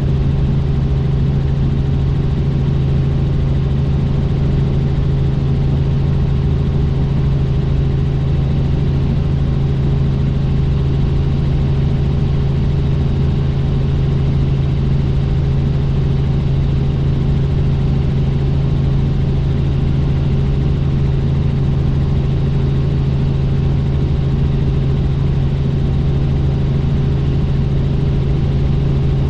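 Helicopter in steady flight: a constant drone of engine and rotor with a strong low hum that does not change.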